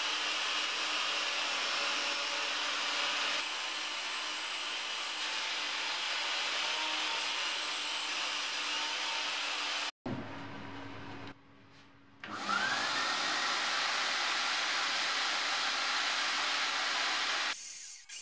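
A shop vacuum runs as dust extraction on a table saw while sheet board is cut, making a loud steady rushing noise. About halfway through the sound breaks off briefly, then a motor spins up with a rising whine and runs steadily again.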